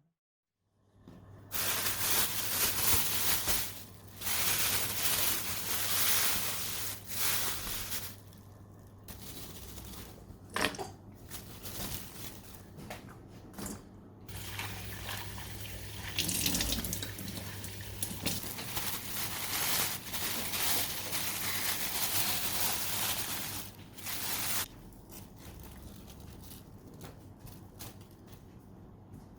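Kitchen tap running into a sink, the water splashing; the flow stops and starts again several times and is turned off about three-quarters of the way through.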